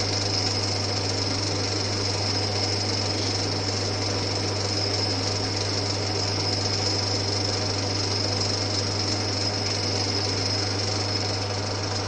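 Old Winfield metal lathe running steadily while a drill bit fed from the tailstock cuts into the workpiece. There is a constant low hum, a steady high-pitched tone and dense mechanical chatter. The bit is not cutting brilliantly, but it is working.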